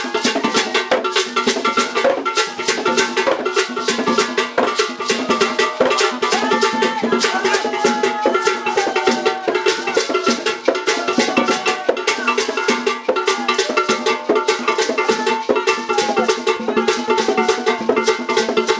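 Traditional drum ensemble playing a fast, steady rhythm of drum strokes and sharp wooden clicks, with a melodic line stepping up and down above it.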